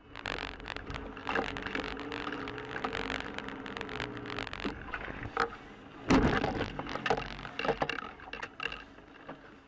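A car in motion, heard from inside: steady engine and road noise with repeated clicks and knocks, and a loud thump about six seconds in.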